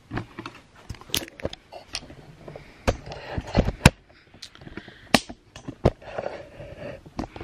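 Handling noise: a run of irregular knocks and clicks with some rustling, the loudest a few knocks about three to four seconds in.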